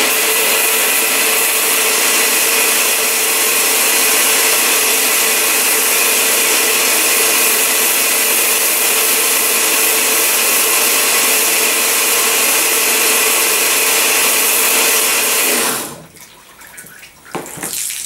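Pressure washer spraying a high-pressure jet of water, a loud steady hiss with a faint machine hum running through it, cutting off sharply near the end as the spray stops.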